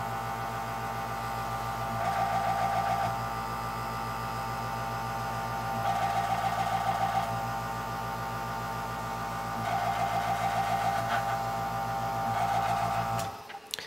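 Iwata Ninja airbrush compressor running with a steady hum, its case giving a severe buzzing rattle that comes and goes about four times as a hand presses on the case. The rattle is the casing vibrating. The motor shuts off near the end.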